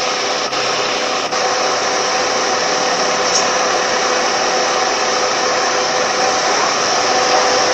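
Car air-conditioning blower fan running steadily: a constant rush of air with a steady hum under it.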